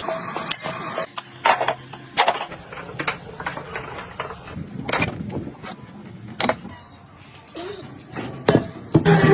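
Irregular metallic clanks and knocks, like tools striking metal parts, spaced unevenly over several seconds.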